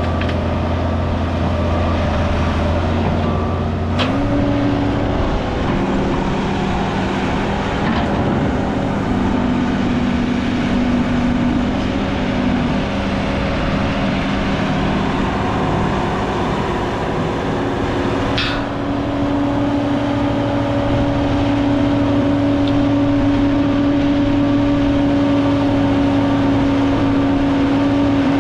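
Link-Belt LS-4300 tracked excavator's diesel engine running under load as it digs and loads, its note shifting in pitch as the boom and bucket work. Two sharp clanks come through, about four seconds in and again just past halfway.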